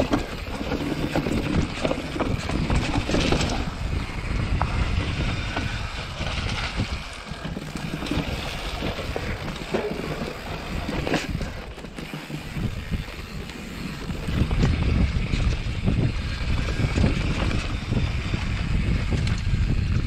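Mountain bike descending a rocky dirt trail: tyres rumbling over rocks and roots, the bike knocking and rattling on the hits, with wind buffeting the microphone. The rumble grows louder about two-thirds of the way through.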